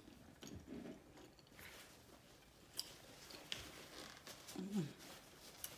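Close-miked chewing of seafood boil with the mouth closed: soft, wet smacks and small clicks. Near the end comes a brief low hum.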